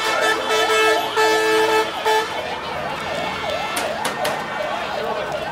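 An emergency-vehicle siren wailing in a fast up-and-down yelp, two to three sweeps a second, with a vehicle horn honking in several blasts over it during the first two seconds.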